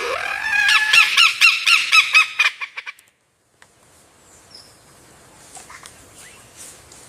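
Lyrebird song: a loud, fast run of repeated ringing notes, about five a second, for nearly three seconds, which cuts off suddenly. After it come only faint background and a few soft distant calls.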